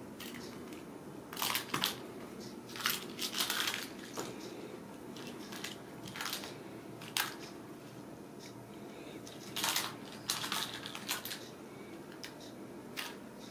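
Kittens batting and pouncing on a plastic lattice ball toy on a rug: irregular short clicks, rattles and scuffs in scattered clusters, over a steady low hum.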